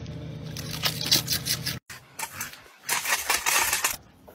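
A dog crunching a crisp snack over the steady low hum of a car interior. After a sudden break, a burst of harsh rasping, scraping noise.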